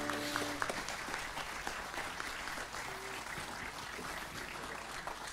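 Audience applauding, with the last acoustic guitar chord dying away in the first half-second; the clapping slowly fades.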